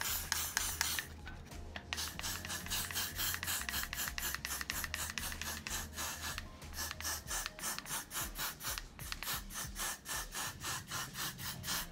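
Aerosol can of Got2b Glued freeze spray hissing in quick short bursts, about three to four a second, as it is sprayed along a wig cap's hairline.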